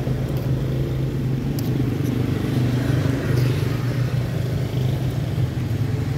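A vehicle engine running with a steady low drone that holds one pitch. A couple of faint light clicks sound in the first two seconds.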